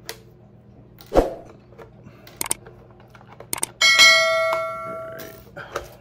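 A bright bell chime rings out about four seconds in and fades over a second and a half. It is the sound effect of a subscribe-and-notification-bell animation, laid over light clicks and knocks from the plastic body and body clips of an RC short course truck being handled.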